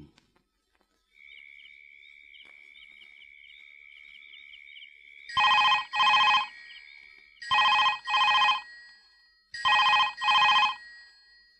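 A faint high steady trill, then from about five seconds in a telephone rings with a double ring, ring-ring, repeating about every two seconds, three times.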